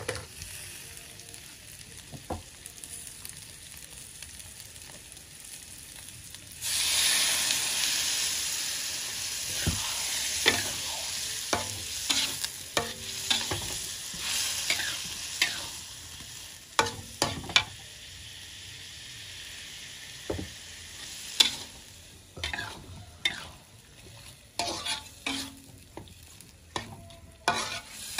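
Metal spatula scraping and clacking against a steel wok as tofu and potato cubes fry. About seven seconds in, a loud sizzle starts suddenly as liquid goes into the hot wok, then slowly dies down while the spatula strokes go on.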